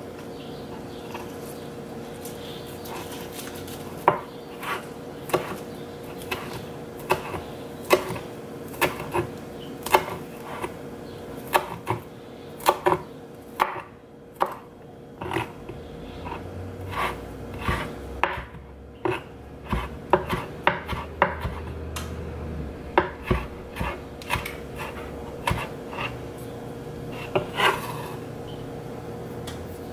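Chef's knife chopping fresh basil on a plastic cutting board: irregular sharp knocks of the blade against the board, about one or two a second, starting a few seconds in. A steady hum runs underneath.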